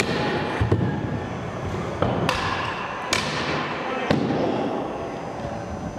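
Kick scooter wheels rolling over wooden skatepark ramps, a steady rumble broken by several sharp clacks and thuds as the scooter hits the ramp surface.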